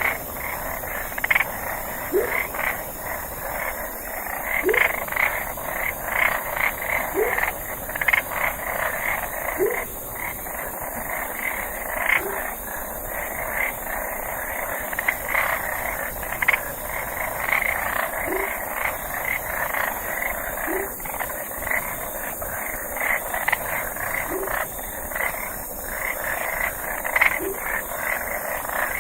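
Night chorus of frogs: many short croaks overlapping in a dense, rapid din, with a lower, short upward-swooping call repeating every two to three seconds.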